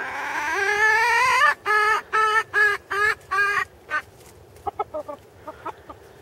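Polish cockerel calling: one long rising note, then a run of about six short, evenly repeated notes, followed by a few soft, quick clucks near the end.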